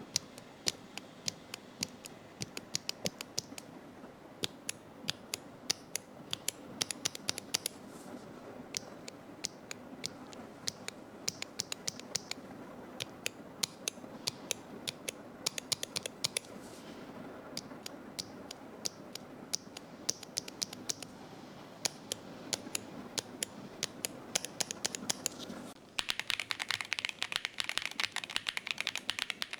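Gateron Smoothie-series linear mechanical keyboard switches (Sea Salt Smoothie, Smoothie Silver and plain Smoothie) are pressed and released one at a time, giving sharp clicks in quick runs with short pauses. About 26 seconds in, the sound turns into fast typing on a keyboard fitted with Sea Salt Smoothie switches, a dense, brighter clatter of keystrokes.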